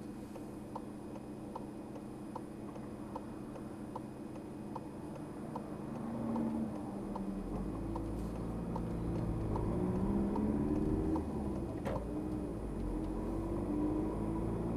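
A car's turn-signal indicator ticking steadily from inside the cabin, a little over two ticks a second, stopping about seven seconds in once the right turn is made. The engine then pulls away, its note rising, with a gear change and a dip in pitch near twelve seconds before it picks up again.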